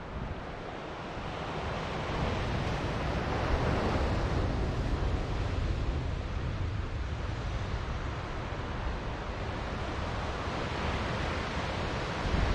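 Ocean surf washing on the shore, a steady rush that swells about two seconds in, with wind buffeting the microphone.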